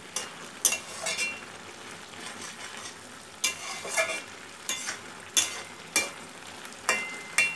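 A metal spatula stirring spinach and shrimp in a metal pan, with about ten irregular clinks and scrapes against the pan, some ringing briefly. Under them runs the steady sizzle of the simmering curry; the greens are nearly cooked.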